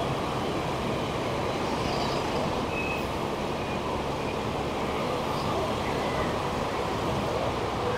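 Steady city street traffic: a continuous low rumble of passing vehicles, with no single sound standing out.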